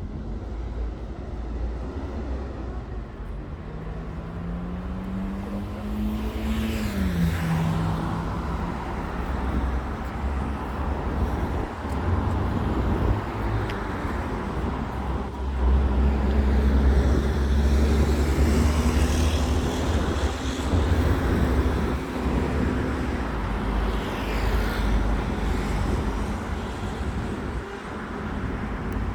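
Road traffic on a city street, with vehicles passing. A few seconds in, an engine rises in pitch as it pulls away. About halfway, a heavier vehicle's low engine rumble passes close by.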